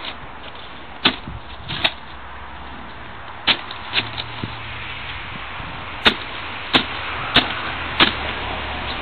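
Snow shovel working snow, with about eight sharp knocks and scrapes at uneven spacing as the blade strikes the pavement.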